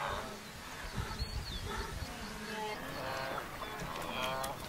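Wildebeest herd calling: repeated short nasal grunting calls from several animals, coming thicker toward the end, with a few low thuds about a second in.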